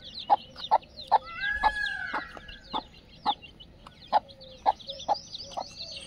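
Desi chickens: many quick, high chick peeps mixed with short hen clucks, and one longer drawn-out call about a second and a half in.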